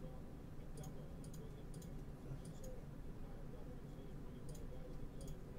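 Scattered computer clicks, about seven in all, some in quick pairs, over a low steady hum.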